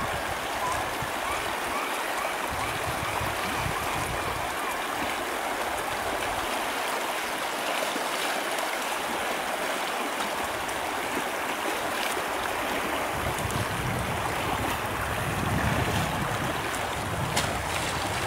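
Shallow river running fast over a stony riffle, a steady rush of water, with low wind rumble on the microphone at times.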